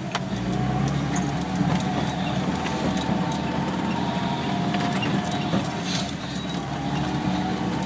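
Cabin noise of a 4x4 driving slowly over a muddy, rutted track: the drivetrain runs steadily under a thin, slightly wavering whine, with a few sharp knocks and rattles as the vehicle crosses bumps.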